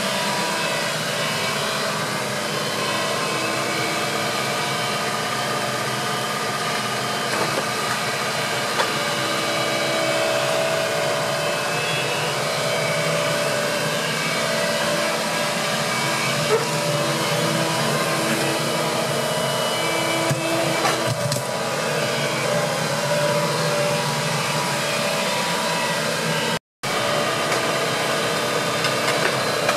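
Hitachi compact tracked excavator's diesel engine running steadily while the arm and bucket are worked, with a few light knocks. The sound drops out for a moment near the end.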